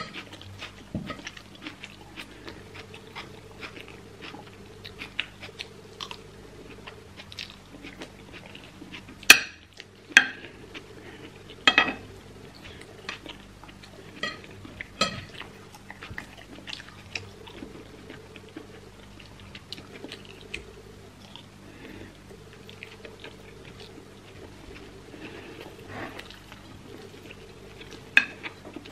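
Metal spoon scraping and clinking against a ceramic plate while scooping rice, with close-up chewing between the scoops. A few sharper clinks stand out around the middle.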